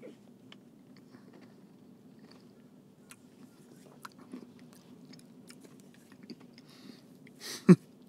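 Faint wet mouth sounds and small lip smacks from a man tasting a milkshake, over a faint steady low hum. Near the end comes a breathy exhale and a short low vocal "mmm" that slides down in pitch.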